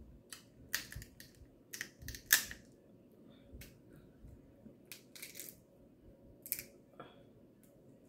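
Crab leg shell cracking and snapping in the fingers as the meat is picked out: a string of sharp crackles, the loudest a little over two seconds in.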